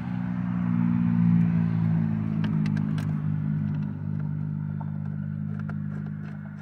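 An engine running nearby with a steady drone, loudest about a second in and then slowly fading. A few light clicks come about two to three seconds in.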